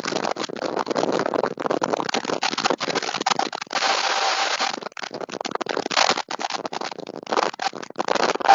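EF-3 tornado winds rushing over a security camera's microphone: a continuous rushing noise that comes through choppy and crackling, broken by many brief dropouts.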